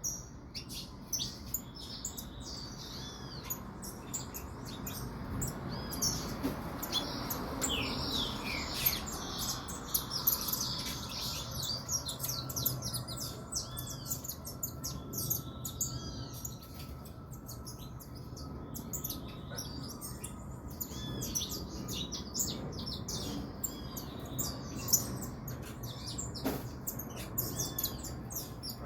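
Female saffron finch chirping rapidly and continuously, with short, high repeated chirps and little sweeps, as a hen in breeding condition.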